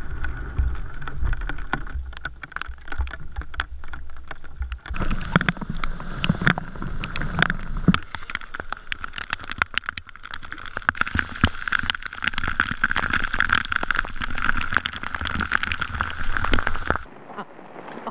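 Canoeing in the rain: rushing river water and rain with many sharp taps and knocks, a low rumble in the first few seconds, then a steady rush of fast water, cutting suddenly to a quieter scene near the end.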